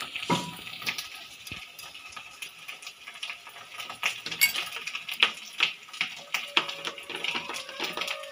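Raw crab pieces clicking and rattling against each other and the bowl as they are mixed by hand with spice paste and chili powder, in many short irregular taps.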